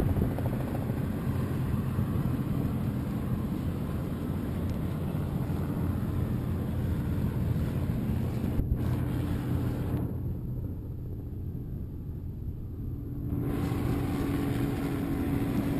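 A motorboat's engine running steadily under way on choppy water, with wind buffeting the microphone. About ten seconds in, the sound goes duller and quieter for a few seconds, then returns.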